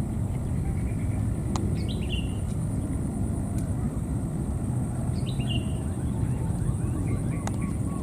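A steady low rumble, with a thin high whine above it. Two brief, high, falling animal calls come about two seconds in and again about five seconds in, and there are a few sharp clicks.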